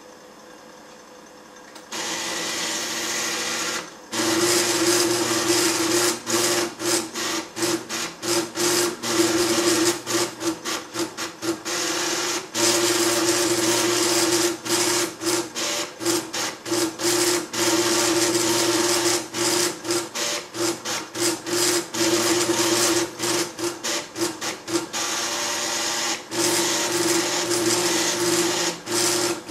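Calcomp 565 drum plotter drawing, its stepping motors driving the drum and pen carriage with a steady buzzing tone broken by many short stops and restarts. Only a faint hum for the first two seconds, then louder from about two seconds in, and running at full level from about four seconds in.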